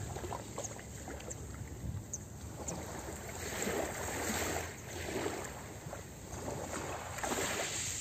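Small waves lapping and washing over a pebble beach, the wash swelling and easing every second or two, with a few faint ticks from the stones.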